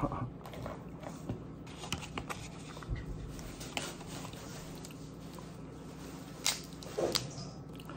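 Cooked red rock crab being broken apart by hand: a scattering of sharp shell cracks and crunchy snaps as the carapace and legs are pried open.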